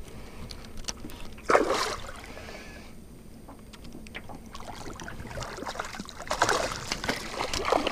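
A hooked bass splashing at the surface beside a boat, in bursts: a sudden loud one about a second and a half in, and more splashing near the end.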